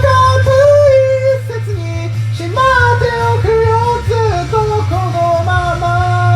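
A voice singing high in mixed voice over a karaoke backing track of bass and guitar, with phrases of held notes and a long sustained note near the end.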